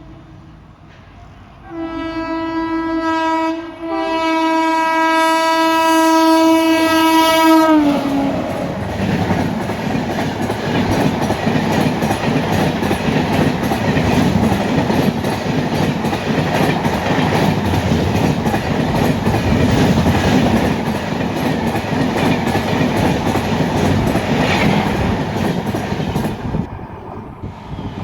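Indian Railways express train passing at speed. The locomotive horn sounds a short blast, then a long one from about two seconds in, and its pitch drops sharply as the locomotive goes by. The coaches follow with a loud rumble and wheel clatter that dies away near the end.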